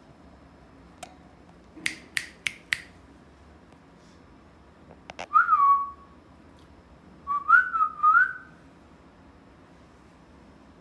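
Alexandrine parakeet making four quick, sharp clicks, then a short whistle that falls in pitch, then a quick run of short rising whistles.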